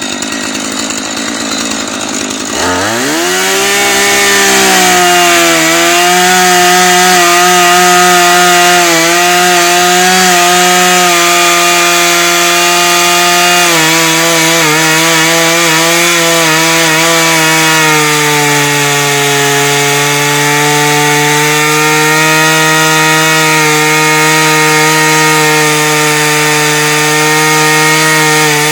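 Husqvarna 435 two-stroke chainsaw idling, then throttled up about two and a half seconds in and held at high revs while cutting wood, its pitch sagging a little under load. The chain is dull: it burns its way through the wood instead of cutting cleanly.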